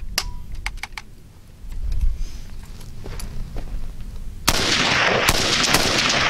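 A few sharp clicks as a Zastava M70AB2 7.62×39 mm rifle is handled. About four and a half seconds in, it opens up in a continuous full-automatic burst that echoes off the earth bank.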